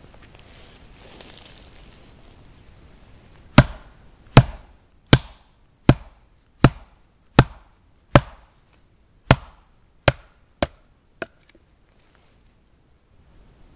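A blade being driven down through a short upright log to split it: eleven sharp wooden knocks about three-quarters of a second apart, starting about three and a half seconds in, the last three lighter.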